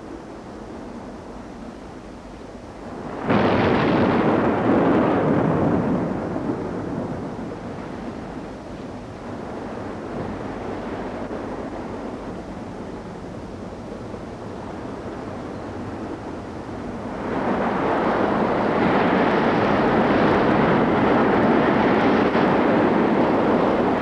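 A loud rushing noise that comes in suddenly about three seconds in and slowly fades, then swells again from about seventeen seconds in and holds.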